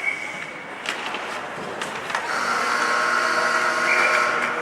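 An arena horn blares steadily for about two and a half seconds, starting about halfway in, over rink noise with a few sharp clicks.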